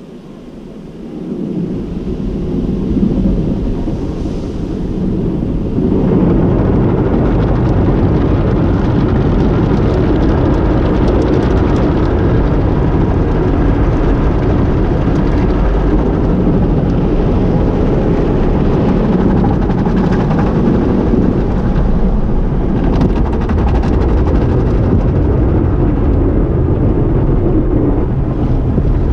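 Tunnel car wash heard from inside the car: water spray and foam brushes and cloth strips scrubbing over the body and windshield. It grows louder about a second in, jumps sharply about six seconds in, then holds steady and loud.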